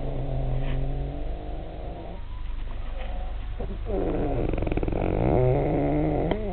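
A man snoring: two long snores, the second with a coarse rattling buzz.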